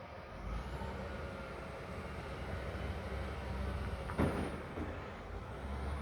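Bulldozer's diesel engine running with a steady low rumble, and one sharp clank about four seconds in.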